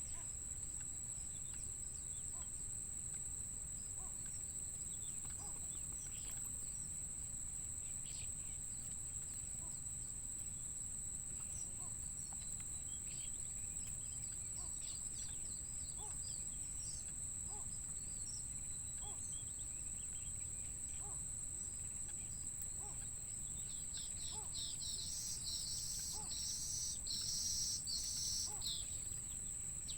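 Steady high-pitched insect trill over a low outdoor rumble, with scattered short bird chirps. Near the end comes a louder run of rapid high chirping lasting a few seconds.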